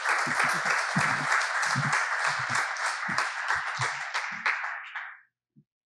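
Small audience applauding, the clapping tailing off and stopping about five seconds in.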